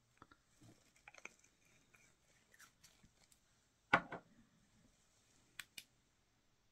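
Faint handling sounds of fly-tying tools on the bench, with a louder knock about four seconds in, then two sharp clicks close together near the end as a UV curing light is switched on to set the resin.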